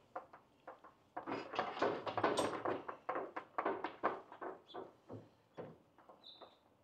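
Clunks, knocks and rattles of a partly disassembled Felder K500 sliding table saw being moved, dense for a few seconds and then scattered, with a brief high squeak near the end.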